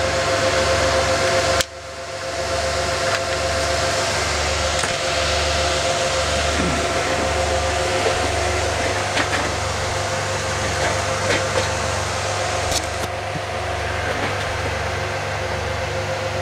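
File server's cooling fans running with a loud, steady whoosh, a couple of steady fan tones and a low pulsing hum. About a second and a half in, the sound drops out sharply and then builds back up over a couple of seconds.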